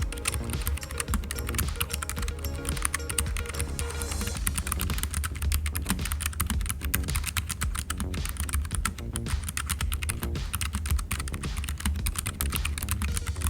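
Typing on a Keychron K3 low-profile mechanical keyboard fitted with brown switches: a fast, continuous stream of key clicks, calmer than clicky blue switches but not silent like reds. Background music plays underneath.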